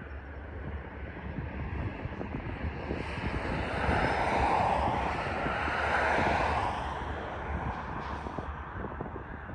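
A passing vehicle: its noise swells to a peak about four to six seconds in, then fades. Wind rumbles on the microphone throughout.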